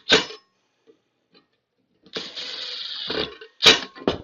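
Metal handling at a recessed can light's junction box and cable connector: a brief clatter, then about a second of steady rasping, ratchet-like scraping, then a sharp metallic clack near the end.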